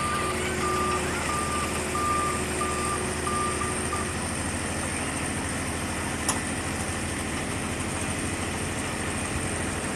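A work vehicle's reversing alarm beeps about twice a second over its steady idling diesel engine, and the beeping stops about four seconds in. The engine keeps running, and there is one sharp click a little after six seconds.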